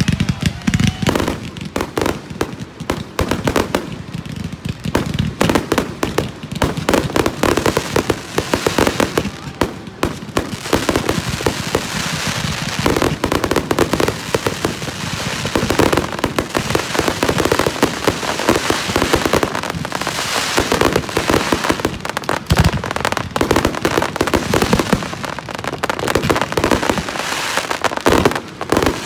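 Aerial fireworks going off in a rapid, nearly continuous barrage of overlapping bangs and crackles.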